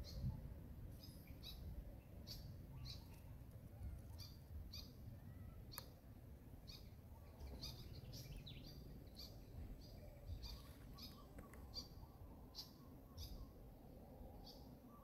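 Faint, short high-pitched animal chirps repeating irregularly, about one or two a second, over a low background rumble.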